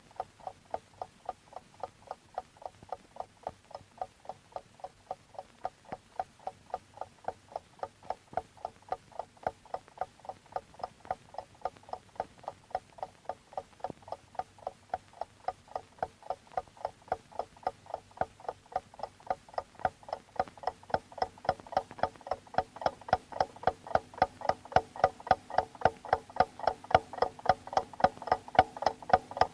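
Wall clock ticking steadily, about two ticks a second, growing gradually louder.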